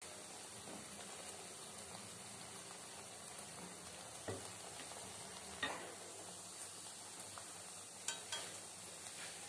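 Donuts deep-frying in hot oil in a steel kadai: a steady, faint sizzle. A few light clicks come through it in the second half, as a wire skimmer taps the pan.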